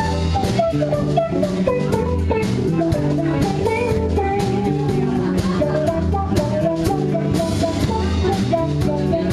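Live band playing a song on drum kit, bass and guitars, with a melody line over a steady beat.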